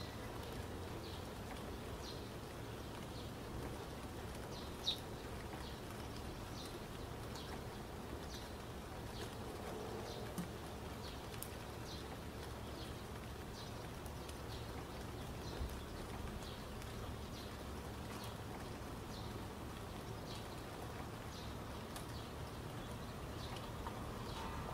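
Steady low hiss and rumble of background ambience, with faint short high ticks recurring about once a second.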